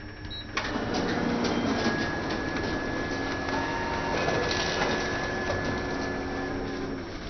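Canon imageRUNNER photocopier printing a page. Its mechanism starts suddenly about half a second in and runs steadily with a faint high whine, easing off near the end.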